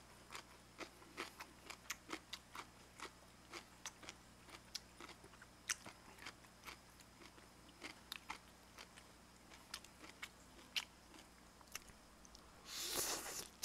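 Close-miked mouth sounds of someone eating sushi and raw fish: irregular soft wet clicks and smacks of chewing, over a faint steady hum. A short, louder rush of noise comes near the end.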